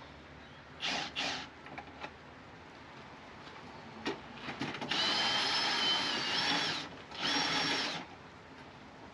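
Cordless drill driving the wind-down mechanism of a slide-on camper's jack leg: two short runs about a second in, then a longer run about five seconds in and another just after seven seconds, each with a high whine.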